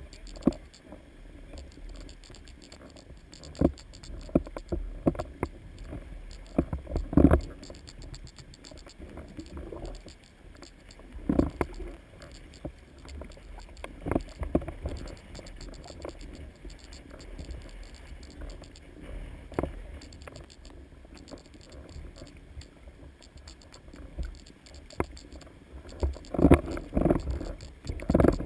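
Canoe being paddled at sea: irregular knocks and scrapes of paddle and hull, loudest about seven and eleven seconds in and in a cluster near the end, over a low rumble.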